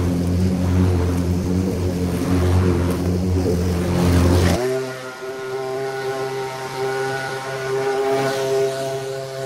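Gas walk-behind lawn mower engine running steadily, then, at a sudden cut about four and a half seconds in, a backpack leaf blower's engine running at a steady, higher pitch.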